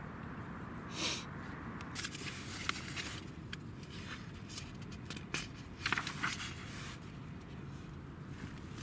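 Paper rustling as the pages of a thick product catalog are handled and turned, in short bursts every second or two over a steady low background.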